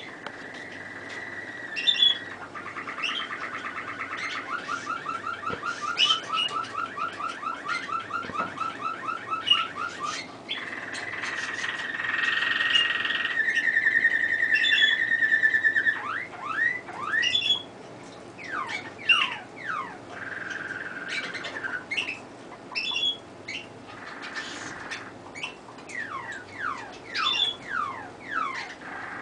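Domestic canary singing a long song: fast rattling trills, held whistled notes, and in the second half a run of quick falling sweeps with short pauses between them.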